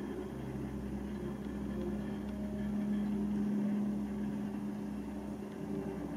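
A steady low hum that swells a little toward the middle.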